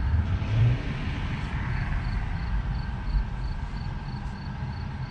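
Cabin sound of a Tesla electric car rolling slowly, with a steady low road and tyre rumble. A faint high ticking, about three a second, runs through the latter part.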